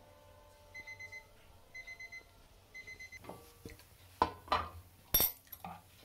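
Digital kitchen timer alarm beeping as its half-hour countdown runs out: three quick bursts of high beeps about a second apart. Then several louder knocks and clinks near the end.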